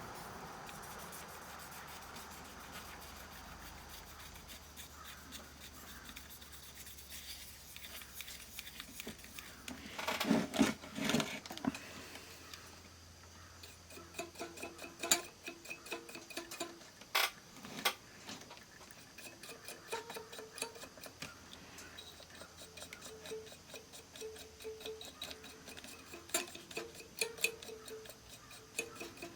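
Irregular small clicks, taps and scratches of hands working on the open analog multimeter's parts while its tarnished contacts are cleaned, with a denser clatter about ten seconds in.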